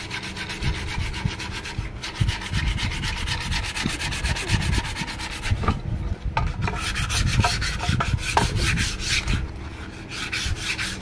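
Wooden speargun stock being hand-sanded with cloth-backed sandpaper, in rapid back-and-forth rubbing strokes that smooth and round off the edges.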